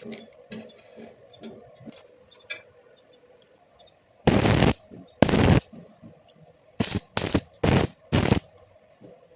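Stick welding arc crackling in short bursts: about six bursts of half a second or less, starting about four seconds in, the arc struck and broken again and again. Before them, only faint clicks and a low hum.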